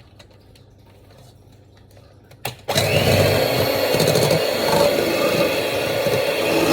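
A few handling clicks, then an electric hand mixer switches on about two and a half seconds in and runs steadily, beating pancake batter in a bowl.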